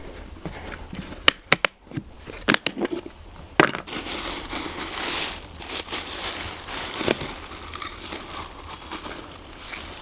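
Pelleted feed being scooped from a bag and poured into a bucket: several sharp knocks of the scoop in the first few seconds, then a rustle of pellets pouring and shifting.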